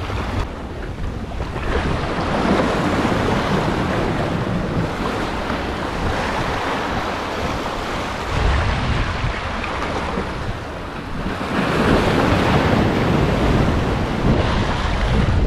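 Ocean surf washing in and out over breakwall boulders, swelling in repeated surges, with wind buffeting the microphone.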